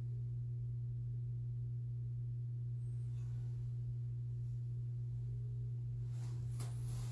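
A steady low electrical hum, with a few faint clicks or rustles near the end.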